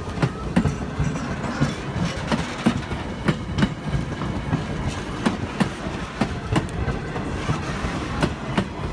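Railroad passenger train running on jointed track: a steady rumble with wheels clicking over the rail joints two or three times a second.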